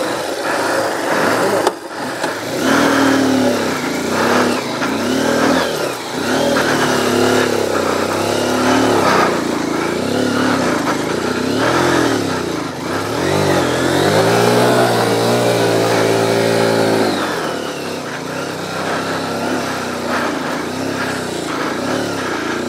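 Dual-sport motorcycle engine revving up and down in repeated bursts as the bike labours up a steep dirt trail, with one longer rev about two-thirds of the way through, then settling to a steadier run.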